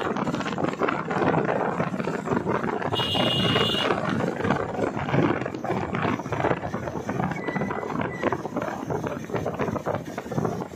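Wind rushing over the microphone mixed with the running of motorcycle engines, heard from a moving motorcycle on the road. About three seconds in, a brief high-pitched tone sounds for about a second.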